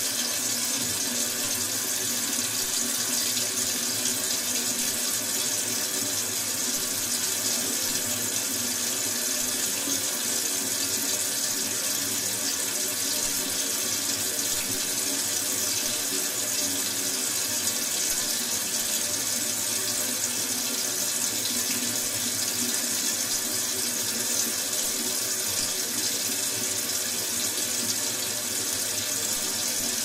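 Kitchen sink tap running, a steady, unbroken stream of water splashing into the sink basin.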